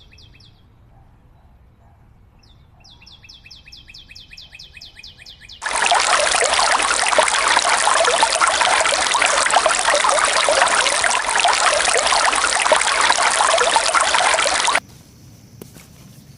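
Heavy rain pouring down: a loud, dense hiss that starts suddenly about six seconds in and cuts off suddenly near the end. Before it, a high chirping call repeats quickly, about six times a second.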